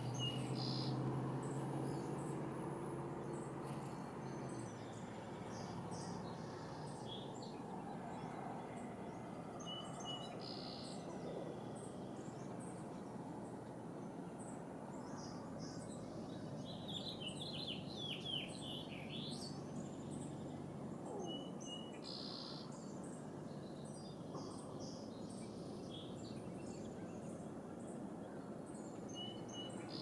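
Outdoor nature ambience: scattered short bird chirps and calls over a steady soft background hiss, with a quick run of falling notes a little past halfway.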